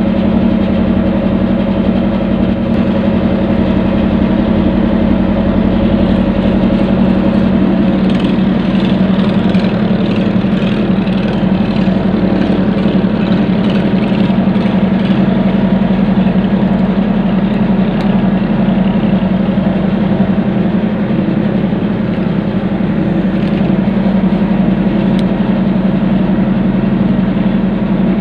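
An engine idling steadily, an even low hum that does not change.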